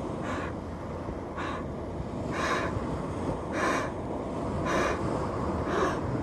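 A man inflating a white inflatable bladder by mouth through its valve: six breaths about a second apart. Steady wind noise on the microphone underneath.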